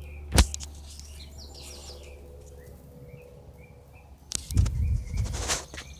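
Small birds chirping in short repeated calls over a low steady hum, with a sharp click about half a second in. Loud rumbling noise takes over about four seconds in.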